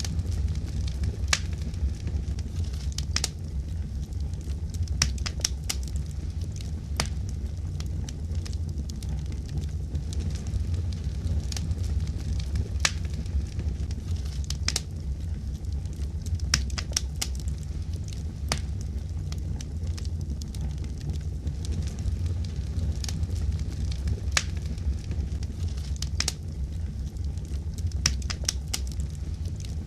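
Wood fire in a fireplace burning with a steady low rumble and irregular sharp crackles and pops.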